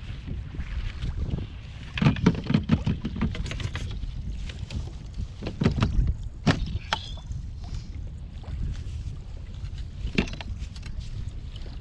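Wind rumbling on the microphone over a plastic fishing kayak on choppy water. Clusters of knocks and clatters on the hull come about two seconds in and around six seconds, with one more near ten seconds.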